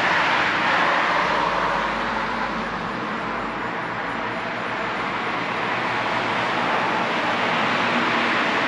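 Cars passing by on a road, tyre and engine noise. It swells as the first cars go by, eases off in the middle, then rises again as another car comes past near the end.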